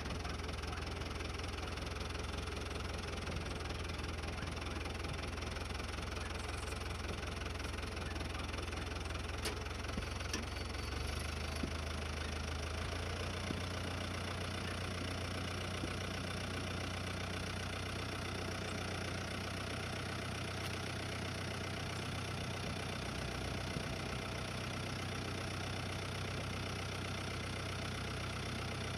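Farm tractor engine running steadily at a low speed, heard close up from the hood. The engine note shifts to a different speed about eleven seconds in.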